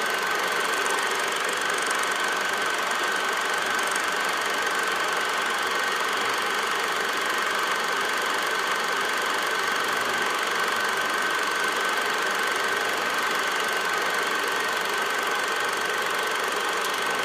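Small 8 mm film projector running steadily, with a constant high-pitched whine over an even mechanical whirr.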